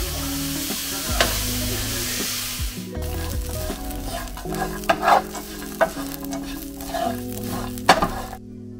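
Maple syrup sizzling as it hits a hot frying pan of toasting oats and chopped almonds, a steady hiss for the first three seconds or so. Then a wooden spatula stirs and scrapes the granola around the pan, with irregular scrapes and knocks.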